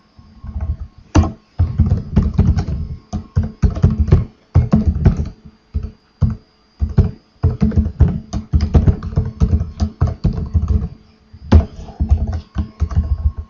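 Typing on a computer keyboard close to the microphone: quick, irregular runs of keystrokes with short pauses between them.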